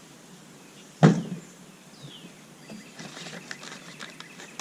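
A single hard knock about a second in, then faint rustling and light clicks: air-horn parts and their packing being handled.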